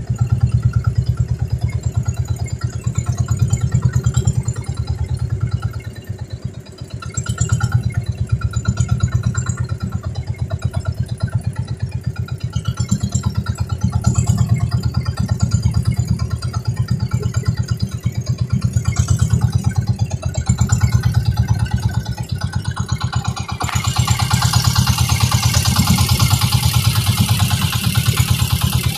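Engine of a motorized outrigger boat (bangka) running steadily under way, a low pulsing drone that swells and eases every few seconds. About 24 s in, a loud steady hiss sets in over it.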